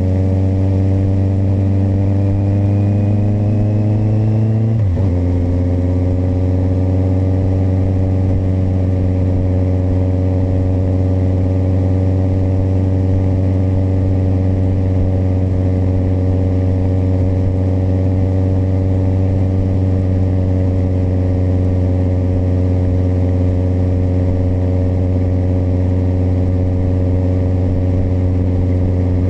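Kawasaki motorcycle engine pulling with its pitch rising, shifting up about five seconds in, then running at a steady cruising speed.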